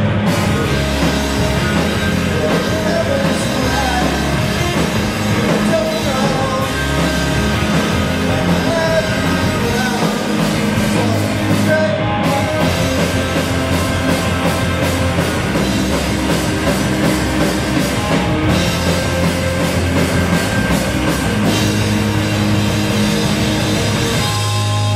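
A pop-punk band playing live and loud: electric bass and drum kit driving a full rock song.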